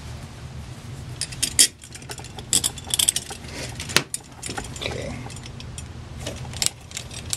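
Short steel screws for the top of a Rochester Monojet one-barrel carburetor clinking on metal as they are picked up and set into their holes: a scattering of light clicks and clinks.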